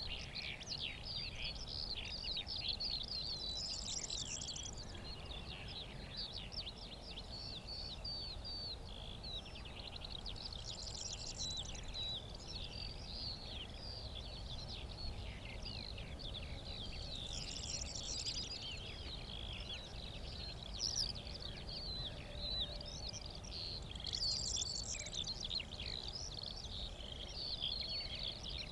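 Continuous, fast, high twittering song of a Eurasian skylark. A brighter short phrase from another bird cuts in about every seven seconds, over a low wind rumble.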